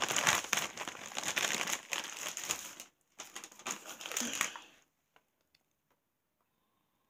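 Crinkling and rustling of plastic being handled while powder is measured out. It breaks off briefly about three seconds in and stops about five seconds in, leaving near silence with a few faint ticks.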